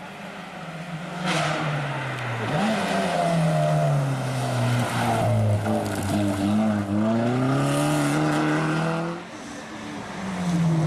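Turbocharged Opel Corsa OPC rally car engine revving hard, its pitch rising and falling again and again. It comes in loud about a second in and falls away briefly near the end before rising again.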